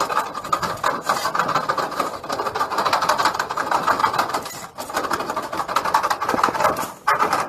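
A machine running steadily with a fast, dense rattle, dipping briefly twice.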